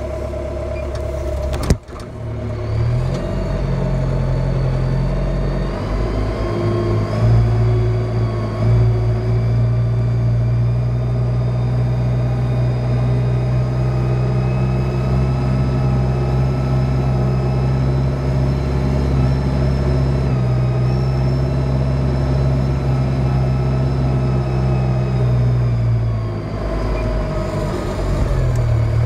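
A Kubota-built MZ655 tractor's diesel engine runs steadily under load, pulling a six-tine stubble cultivator through field soil. A single sharp click comes about two seconds in.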